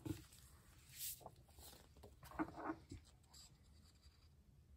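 Faint handling noises: a comic book slid and turned on a tabletop by gloved hands, with soft paper rustles and light taps about a second in and again between two and three seconds.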